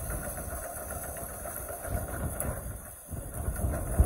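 Cat 308E2 CR mini excavator's diesel engine running as the machine tracks and moves its arm, with a low rumble that swells and eases, and one sharp knock near the end.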